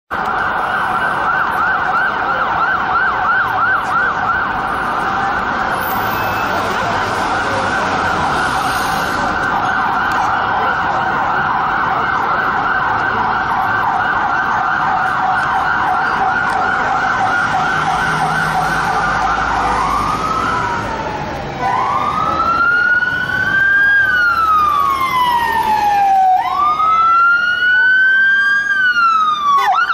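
Unmarked police car's electronic siren sounding the fast yelp for about twenty seconds. It then switches to the slow wail, two long rising-and-falling sweeps, over street traffic noise.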